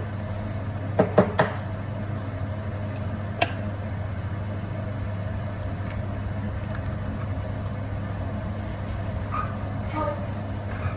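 Steady low hum of a running kitchen appliance, with a quick cluster of three sharp knocks about a second in and a single knock a little later, like utensils knocking on a bowl or pan.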